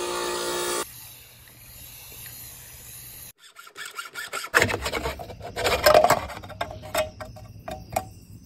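Bench grinder running with a sheet-metal valley pan held to its wheel, a steady pitched whine that cuts off just under a second in. After a quieter stretch, from about halfway on, scraping and sharp clicks of a spin-on oil filter clamped in a vise being cut open.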